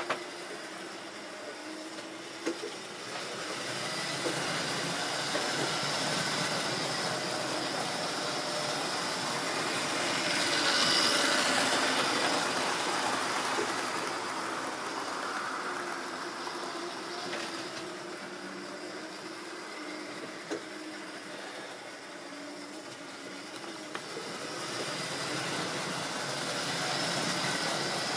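Model railway trains running on the layout: the steady whirr of small electric motors with wheels clicking over rail joints now and then. It grows louder about ten seconds in and again near the end.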